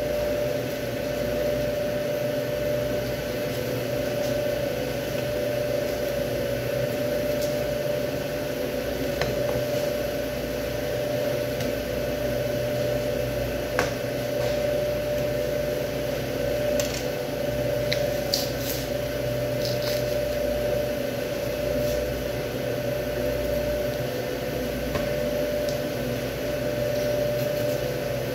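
Steady machine hum with a constant mid-pitched tone. A few faint knife clicks and scrapes come through as beef ribs are cut from the bone, mostly past the middle.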